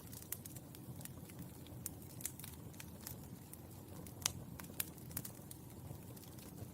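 Burning charcoal crackling: irregular sharp pops and ticks over a low steady hiss, with the loudest pop about four seconds in.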